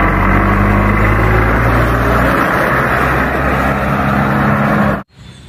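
Loud truck engine sound running steadily. Its deepest note drops out about two seconds in, and the sound cuts off abruptly about five seconds in.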